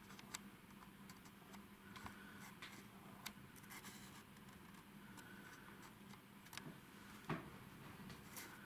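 Near silence: room tone with a faint steady low hum and scattered faint clicks.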